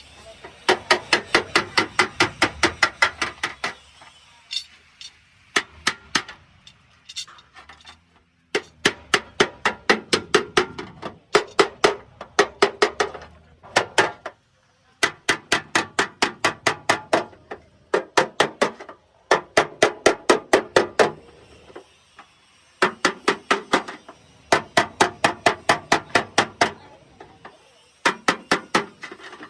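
Hand hammer beating sheet metal on an old Suzuki's body in fast, even runs of about six or seven blows a second, each run lasting a few seconds with short pauses between.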